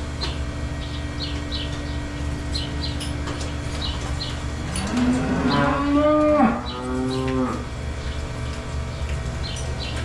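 A dairy cow mooing once, a long call about five seconds in that rises and then falls in pitch, over a steady low hum.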